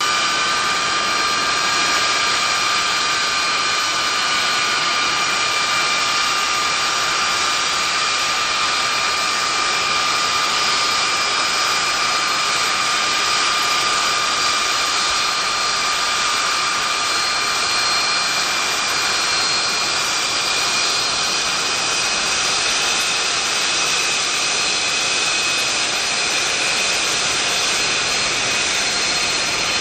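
Fighter jet engines running steadily on the ground: an even rush of noise with several steady high whine tones over it.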